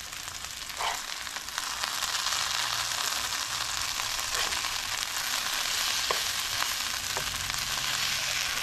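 Hash browns frying in oil in a pan: a steady sizzling hiss as they brown to a crust, with a few faint clicks.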